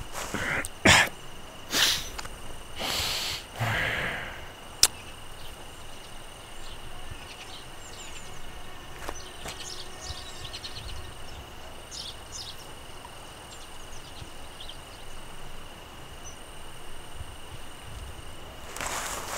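Insect ambience: a steady high insect drone with scattered short chirps. In the first few seconds there are several brief rushes of noise, which are the loudest sounds, and a single sharp click about five seconds in.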